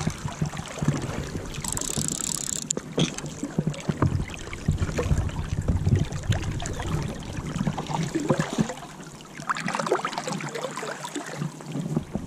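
Creek water sloshing and splashing close by as a wading angler works a landing net in the current while playing a hooked trout, with many small knocks. A low wind rumble on the microphone drops away near the end.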